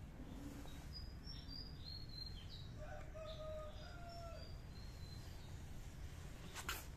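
Outdoor ambience: small birds chirping in short high notes over a steady low background rumble, with a rooster crowing far off in the middle. A single sharp click comes near the end.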